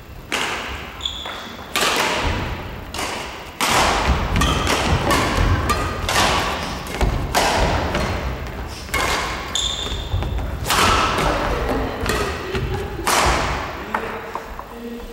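Badminton rally: rackets striking the shuttlecock in sharp hits about every second or so, with players' feet thudding on the wooden gym floor, the hits echoing in the hall.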